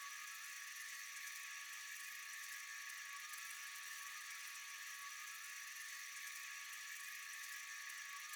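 Steady, high-pitched night insect chorus: a constant dense shrill drone with a few held tones, unbroken and unchanging.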